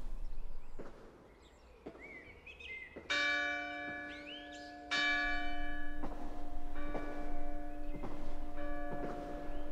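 A church bell ringing, its first strike coming about three seconds in and a louder one about two seconds later, then struck again and again, each stroke ringing on with many steady overtones.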